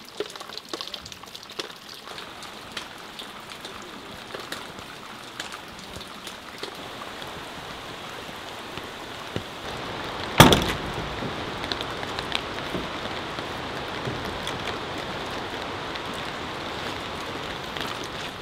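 Steady rain pattering on a surface, with many small drop ticks. There is one sharp loud knock about ten seconds in, and the rain is a little louder after that.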